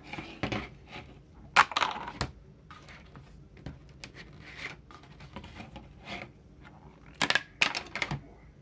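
Handling noise of a PEI-coated spring steel 3D-printer sheet with printed plastic parts on it: scattered clicks, knocks and scrapes, with a loud clatter about one and a half seconds in and another cluster near the end.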